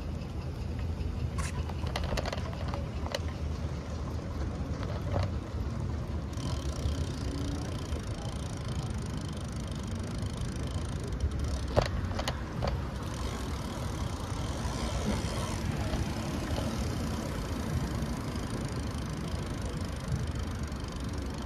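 City street noise heard from a bicycle riding over rain-wet pavement: a steady low rumble, a hiss that swells about six seconds in, and a few sharp clicks, the loudest about twelve seconds in.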